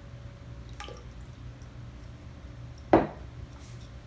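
Olive oil poured from a glass bottle into a steel mixing bowl, dripping faintly, then one sharp knock about three seconds in.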